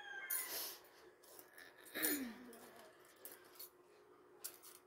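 A woman's breathy, suppressed laughter: a wheezy exhale near the start, then a short voiced sound falling in pitch about two seconds in. A few faint clicks follow near the end.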